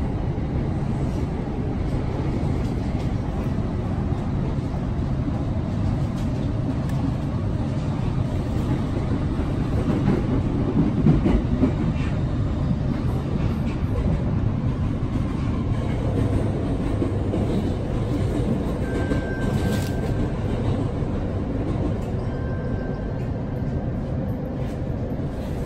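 Interior running noise of a JR East E231-800 series electric commuter train: a steady rumble of wheels on rails that grows slightly louder about ten seconds in. A faint high tone comes and goes near the end.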